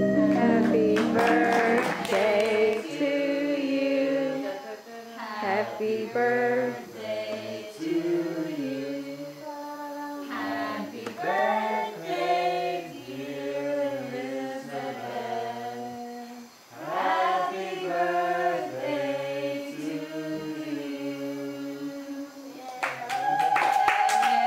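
Recorded music with singing: a sung melody over a line of low bass notes.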